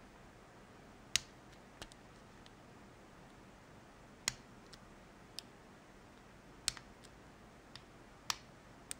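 Sparse, sharp metallic clicks from a hook pick and tension bar working the pins inside an Abus 72/40 six-pin padlock during single-pin picking, about seven clicks at irregular intervals of one to two and a half seconds.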